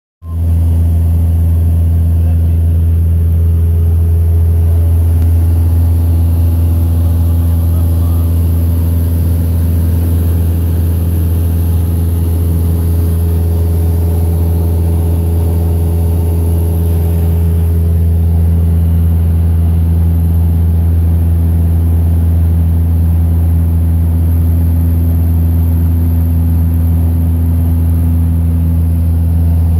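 Cessna light aircraft's piston engine and propeller droning steadily in flight, heard from inside the cabin: a deep, even hum with a thin hiss of air above it.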